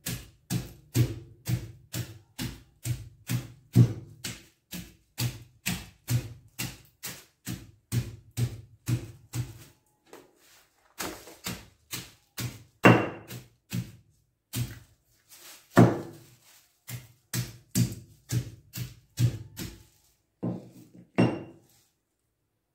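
A pestle pounding garlic through a plastic bag on a table, dull knocks about two a second. They pause about ten seconds in, resume with a few louder strikes, and stop near the end.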